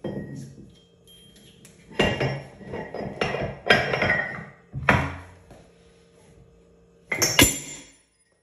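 Steel internal parts of a Rock Hog down-the-hole hammer knocking and clanking inside its steel wear sleeve as they are lowered in and bumped down into place. There is one knock at the start, four heavier knocks between about two and five seconds in, and a close pair near the end that ring briefly.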